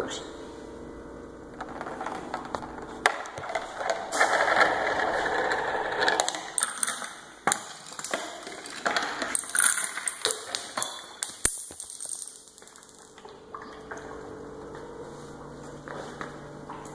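Homemade marble-run chain-reaction machine running: a marble rolling through a tube and down wooden slides, with a run of sharp clicks and clacks as dominoes topple and pendulums strike. The rolling is loudest about a third of the way in, and it goes quieter near the end.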